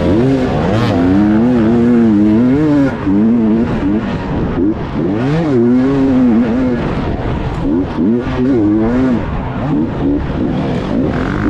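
Racing motorcycle engines revving, their pitch rising and falling again and again.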